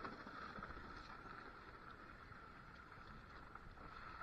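Near silence: faint steady outdoor background noise with a low rumble and a faint continuous tone, no distinct events.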